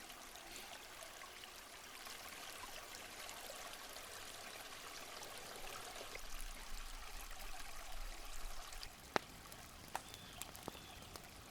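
Faint, steady rush of flowing stream water, with a sharp click about nine seconds in and a weaker one a second later.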